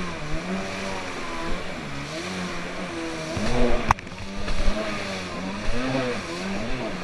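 Kawasaki 550 stand-up jet ski's two-stroke twin engine running at speed, its pitch swinging up and down over and over, over the rush of water spray. One sharp knock about four seconds in.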